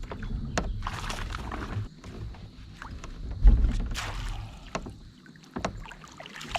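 Scattered clicks and knocks of handling on a fishing kayak, over a low rumble, with a heavier low thump about halfway through.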